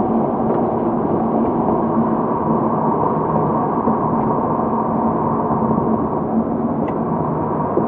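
2007 Porsche Cayman S's flat-six engine and road noise heard from inside the cabin, running at a steady pitch with no revving up or down.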